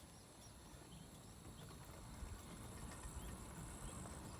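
Quiet rural outdoor ambience: a low rumble of wind on the microphone that grows slightly toward the end, with a faint, steady, high-pitched insect drone and a few faint bird chirps.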